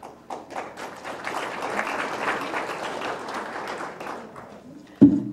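Audience applauding, building up over about two seconds and then dying away. A single sharp thump comes near the end.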